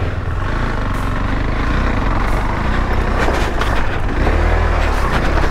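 KTM 390 Adventure's single-cylinder engine running under load on a rough dirt trail, its note rising and falling with the throttle.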